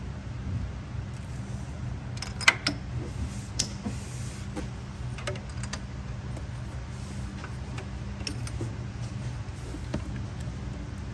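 Hand tools clinking and clicking against metal a few times, most of them about two and a half to three and a half seconds in, over a steady low hum.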